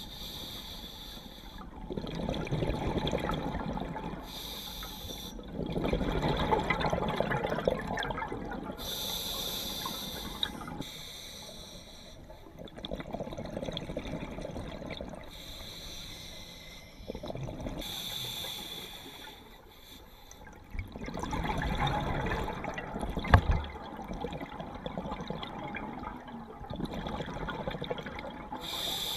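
A scuba diver breathing through a regulator underwater: a hiss on each inhale, then a rush of exhaust bubbles on each exhale, repeating every four to six seconds. A single sharp knock comes about two-thirds of the way through.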